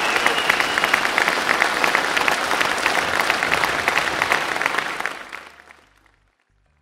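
A crowd applauding: dense clapping that fades away about five seconds in.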